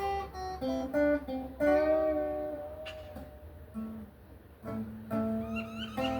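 Acoustic guitar being played, a run of plucked notes and chords that each ring out and fade.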